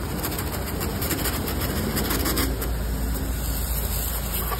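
Pressure washer running: a steady motor hum under the hiss of the water jet.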